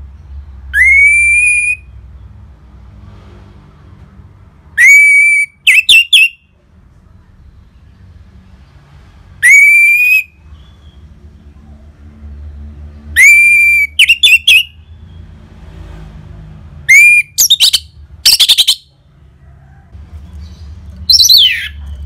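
Orange-headed thrush singing loud, clear whistles about every four seconds. Each note slides up and holds for about a second, several are followed by a quick burst of short notes, and the last note sweeps down.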